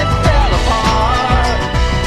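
Background music: a song with a wavering melody line over a steady low beat.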